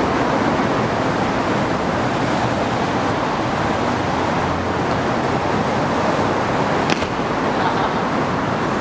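Steady outdoor street traffic noise, an even rushing hiss, with a brief click near the end.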